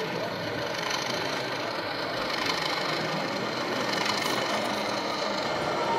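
OO gauge model Class 37 diesel locomotive running along the track, giving a steady engine-like running sound.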